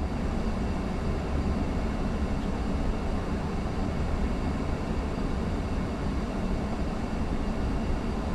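Steady flight-deck noise of an Airbus A340-600 in flight: an even, deep rumble with a hiss above it and a few faint steady hums.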